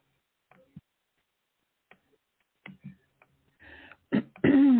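Broken internet call audio: mostly quiet, with faint scattered clicks and brief garbled blips of the dropping connection. Near the end a person's voice comes through loud, its pitch falling.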